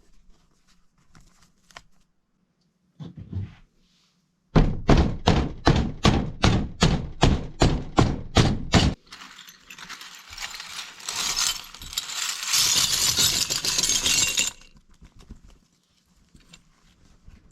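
Glass being crushed with repeated hammer blows, about three strikes a second for several seconds, followed by about five seconds of steady crunching and rattling of broken glass.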